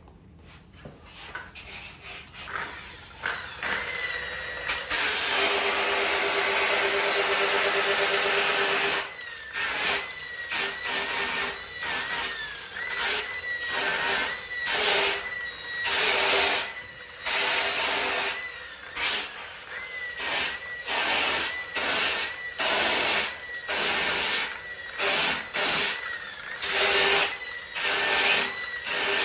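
Makita rotary sander-polisher starting up about five seconds in and running with a steady whine. It then sands the fiberglass around a surfboard fin chop, the rasping swelling and dropping about once a second as the disc is worked over the damage to bevel its edges for the repair.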